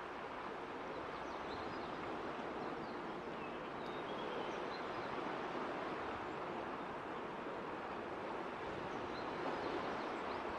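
Steady rushing outdoor background noise, with a few faint, short high chirps scattered through it.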